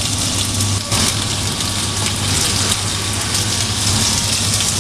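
Corn puff snack extruder running: a steady low motor hum under a loud, dense hiss.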